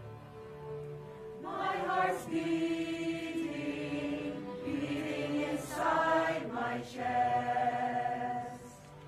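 Mixed choir singing in parts, sustained notes that swell louder twice and soften again near the end.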